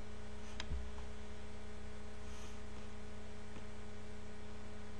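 Steady electrical mains hum in the recording, a constant low buzz with evenly spaced overtones, with a couple of faint clicks within the first second.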